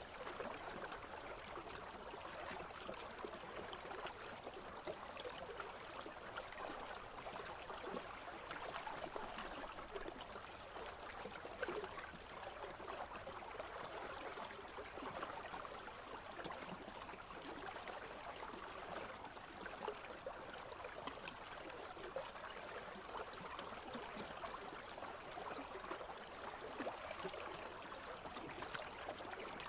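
A shallow country stream flowing and trickling steadily over stones.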